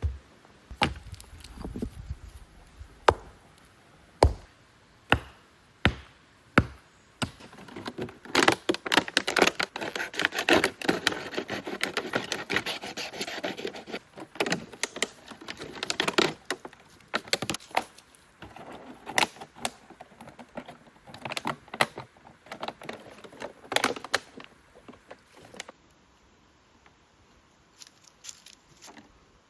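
Sharp knocks about once a second, then a long spell of dense clattering and rustling, then scattered knocks and cracks that die away near the end.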